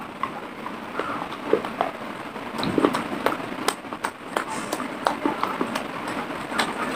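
Close-miked chewing and biting of dry clay: dense crunching and crackling with many sharp clicks.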